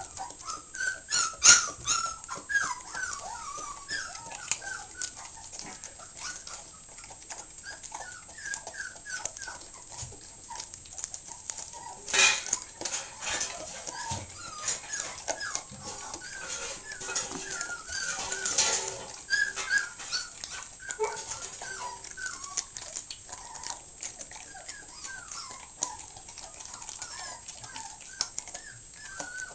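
Puppies whimpering over and over in short, high, wavering cries. Under them a dog chews and smacks wetly on a piece of raw chicken breast, with a few louder wet smacks about a second in and again around twelve seconds in.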